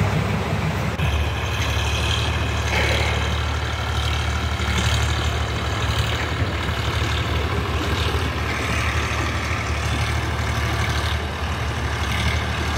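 Diesel farm tractor engine running steadily while pulling a trolley loaded with soil. There is a change in the sound about a second in.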